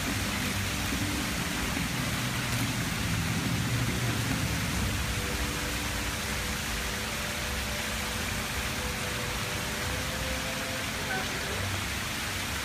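Steady hiss of rain on a wet stone plaza, with faint crowd voices underneath.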